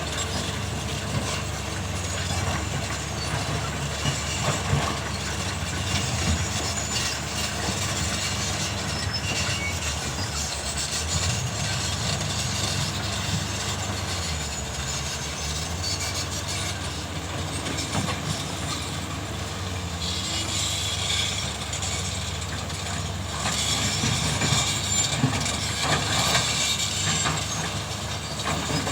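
Komatsu and Hyundai hydraulic excavators at work: a steady diesel engine drone with scattered clanks.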